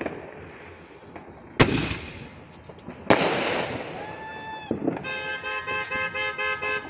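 Two loud aerial firework bangs about a second and a half apart, each trailing off in a long crackling hiss. Then a car horn sounds once, held briefly, followed by a run of quick repeated honks, about three a second.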